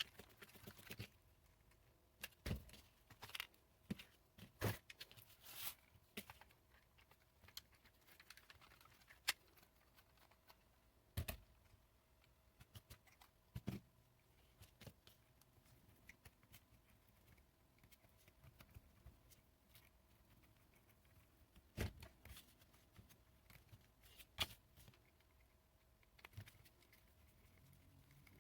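Faint, sparse clicks and taps of small hand tools and plastic and metal parts being handled while an RC car's rear hub carrier is taken apart.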